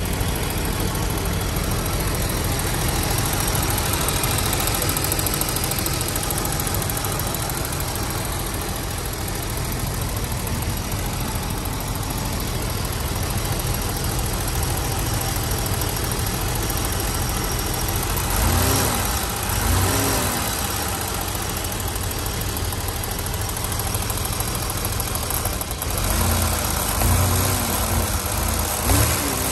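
1988 BMW 735i's M30B35 straight-six idling with a valvetrain tick that the owner takes for lifter tick. Its revs rise and fall briefly a few times in the second half.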